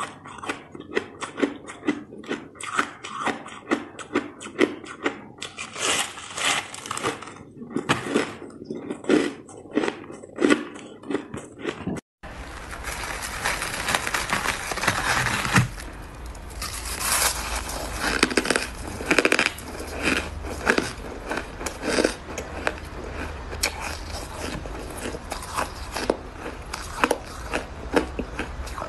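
Close-up crunching of pure white shaved ice being bitten and chewed, many small sharp crunches in quick succession. About twelve seconds in it cuts to another recording with a steady low hum, in which fluffy frozen ice is crumbled, scraped and bitten with a crackling crunch.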